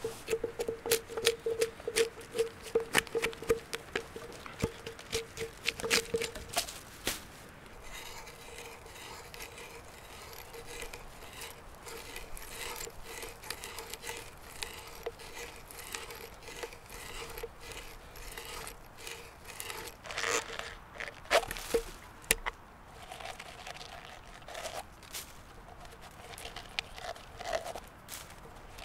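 A hatchet chopping into a log, about two strikes a second. Then a hand-turned auger bit boring a hole into the log, a steady crunching and scraping as it cuts out wood shavings, with a few louder knocks partway through.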